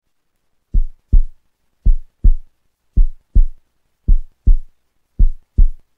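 Heartbeat sound effect under an on-screen countdown: five low double thumps (lub-dub), about one pair a second.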